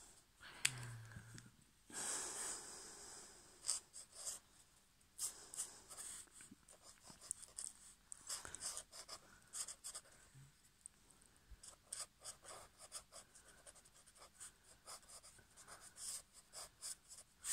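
Black marker pen scratching across paper in many quick, short drawing and hatching strokes, with one longer scrape about two seconds in.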